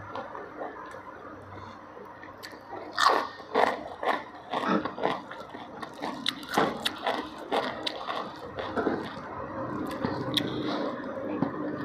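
A person chewing a mouthful of food close to the microphone: many short crunches and mouth clicks, loudest a few seconds in.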